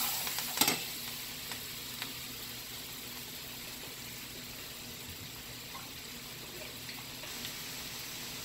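Melted butter with minced garlic sizzling steadily in a skillet, a light continuous hiss. A few sharp clicks come in the first two seconds.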